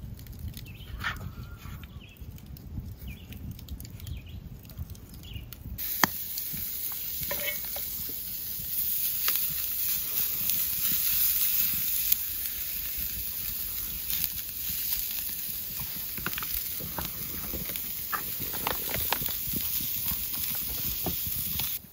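Steady hiss with scattered crackles and pops from a cooking fire, starting abruptly about six seconds in after a stretch of low rumble with a few clicks.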